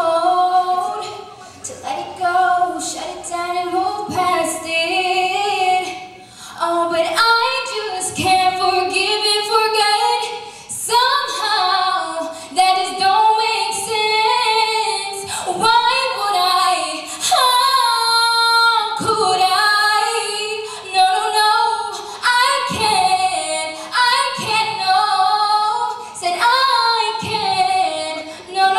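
A teenage girl singing solo through a handheld microphone, with long held notes that waver in pitch and runs that glide up and down between them.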